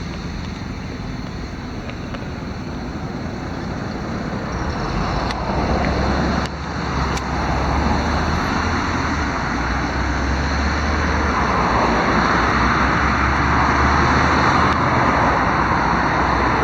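LiAZ-6213.22 articulated city bus under way, heard from inside: a low engine hum and road noise growing louder over the second half as the bus picks up speed.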